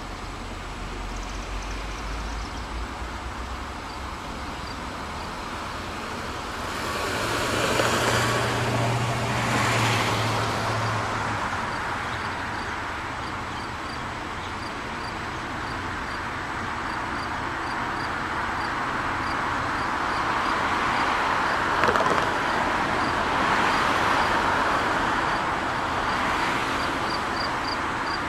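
NJ Transit push-pull commuter train pulling out of the station: the diesel engine pushing from the rear rises to a low drone about seven seconds in, then the cars rumble past. A grade-crossing bell rings steadily at about two dings a second. Near the end a car drives over the crossing.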